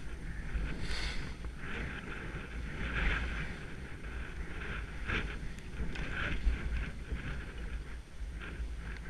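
Wind rumbling on a head-mounted camera's microphone during a ski run, with the repeated hiss and scrape of skis on snow swelling and fading about once a second.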